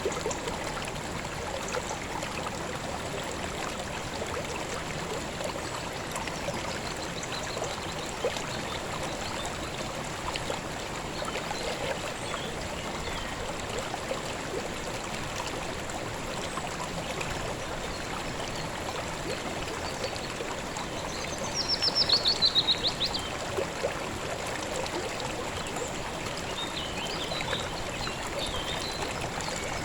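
Calm river water flowing and babbling steadily. About two-thirds of the way through, a bird gives a quick trill of rapid notes that falls in pitch, the loudest sound here, with a few faint chirps at other moments.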